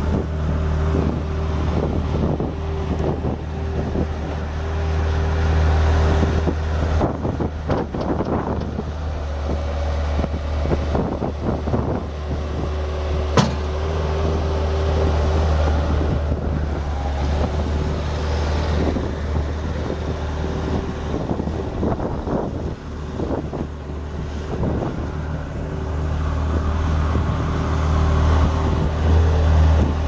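1997 Bobcat 763 skid steer's Kubota four-cylinder diesel engine running steadily as the machine drives and turns, with scattered knocks and rattles and one sharp click about 13 seconds in. The engine grows louder near the end as the machine comes close.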